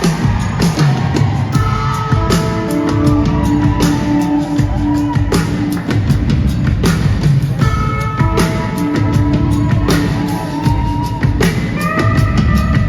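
A live rock band kicking in suddenly and playing loudly: drum kit and bass driving a steady beat under held notes.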